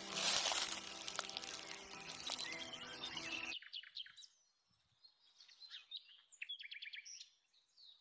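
Loud steady hissing noise with a low hum that cuts off abruptly about three and a half seconds in. Then small wild birds chirp in short, high notes, some in quick rapid runs.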